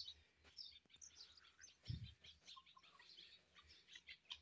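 Faint, high bird chirps scattered throughout, with one soft low thump about two seconds in.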